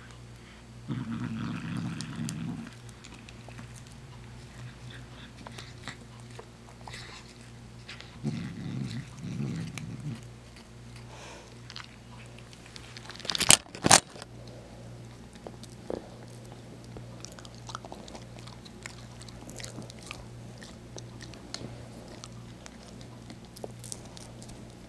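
Cat biting and chewing a treat held in a hand. Two louder stretches of low, rough sound come about a second in and again around eight seconds in, and two sharp knocks land close together about halfway through.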